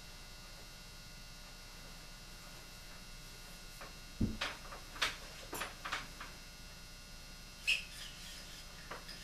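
Cleaning rod and patch worked through the bore of a nitride-finished Colt Walker revolver barrel: short scrapes, clicks and a brief squeak, a squeaky-clean bore. A soft knock comes about four seconds in, after a few seconds of faint steady hum.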